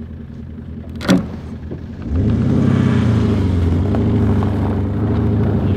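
Mercedes G500's V8 engine revved up and held at high revs, with wheels spinning, as the stuck G-wagon tries to drive free. There is a sharp click about a second in, and the revs jump about two seconds in.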